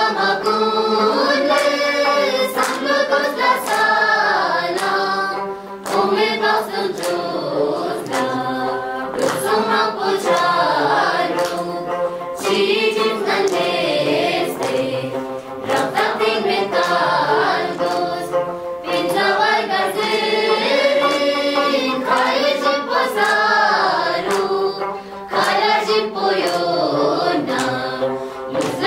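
A group of children, boys and girls together, singing a song in unison, with short sharp strokes sounding now and then through the singing.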